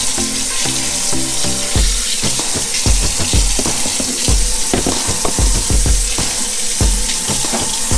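Kitchen tap running steadily into a sink, a continuous hiss of water, under background music with a regular low beat.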